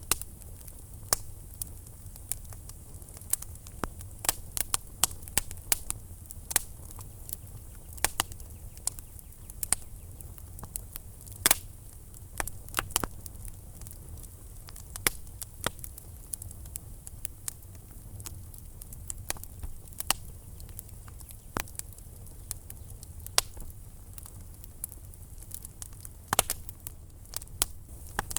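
Wood fire burning in a fireplace: a steady low rumble of flames with frequent irregular crackles and sharp pops of burning logs.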